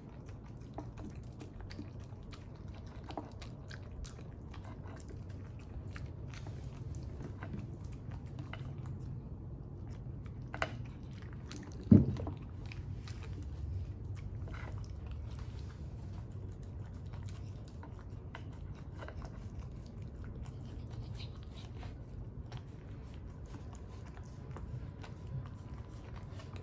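Small dog chewing and biting food off a wooden tray, with many small clicks and crunches of teeth on food and board. A single sharp knock stands out about twelve seconds in, over a steady low hum.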